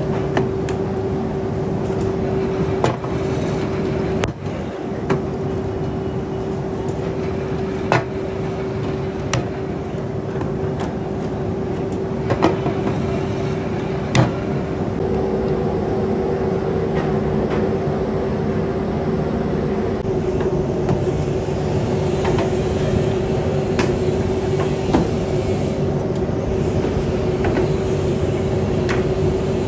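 Motor-driven pottery trimming wheel running steadily, a constant hum over a dense mechanical rumble, with occasional sharp clicks and knocks.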